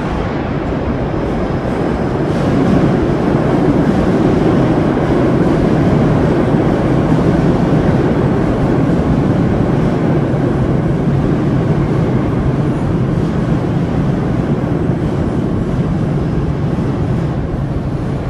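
Subway train running through an underground station: a loud, steady rumble that swells about two seconds in and holds.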